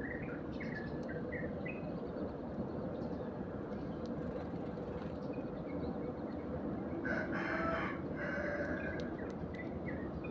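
Eurasian tree sparrows chirping in short notes over steady background noise, busiest in the first two seconds. About seven seconds in comes one louder, harsher call lasting about a second.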